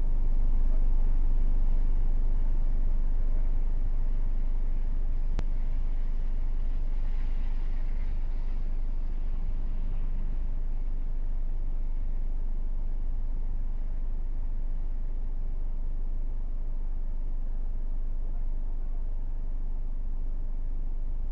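Nissan Expert's engine idling steadily, a low even rumble heard from inside the cabin, with a single sharp click about five seconds in.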